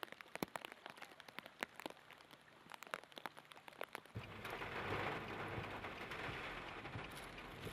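Rain: for about four seconds, irregular sharp ticks of raindrops striking close to the microphone, then a steady, louder hiss of heavy rain falling on a flooded street.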